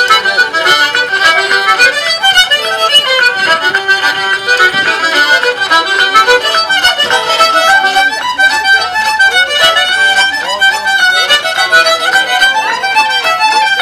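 Fiddle music: a lively tune of quick notes on the violin.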